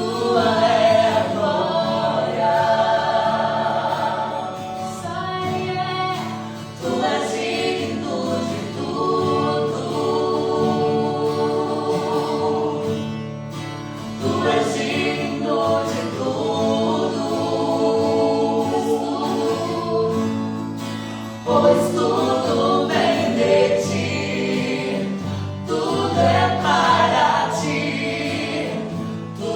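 Slow Christian worship song sung by a group of voices, with long held notes in phrases of a few seconds.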